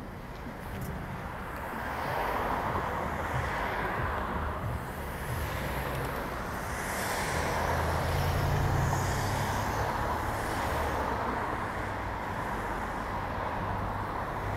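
City street traffic: cars passing on the boulevard, the tyre and engine rush swelling twice, over a low steady engine hum.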